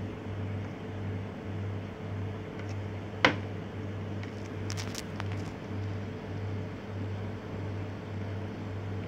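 Steady machine hum with a low throb about twice a second. One sharp click about three seconds in, and a few fainter clicks soon after.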